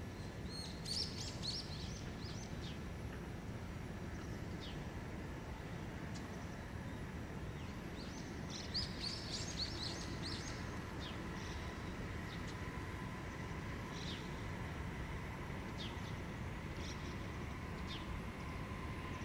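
Small birds chirping in short quick bursts, thickest about a second in and again around eight to ten seconds, over a steady low outdoor background rumble. A faint steady tone builds through the second half as a distant freight train approaches.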